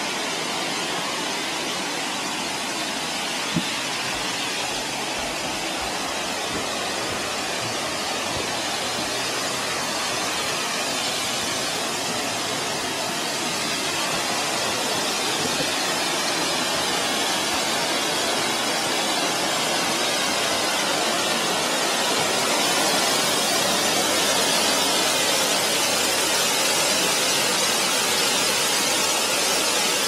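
Mitō Ōtaki waterfall's steady rush of falling water, growing louder through the middle as the bridge brings it closer. One short knock comes a few seconds in.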